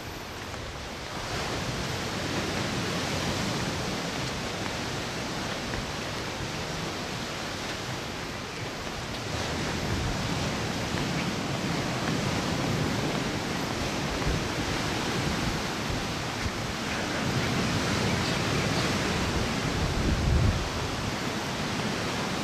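Steady wash of ocean surf breaking on the shore, mixed with wind buffeting the microphone, with a stronger gust near the end.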